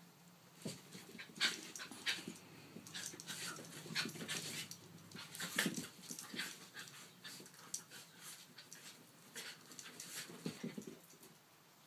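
Small dogs play-wrestling: panting and scuffling, with many irregular short clicks and scrapes.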